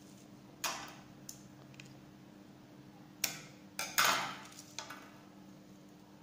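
Plastic reel of ACF tape handled and tape drawn off it. A few short, sharp clicks and rasps, each dying away quickly, the loudest about four seconds in.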